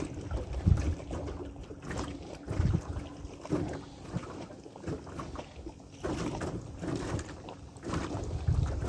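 Wind buffeting the microphone in irregular gusts, with a faint steady hum underneath.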